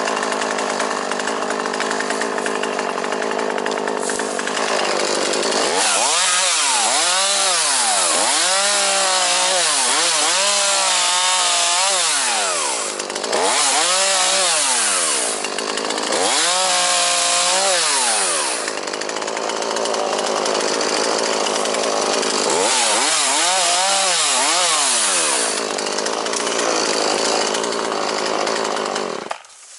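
ZimAni 450 petrol chainsaw running, held at a steady high speed at first, then revved up and eased off again and again. The engine stops abruptly near the end.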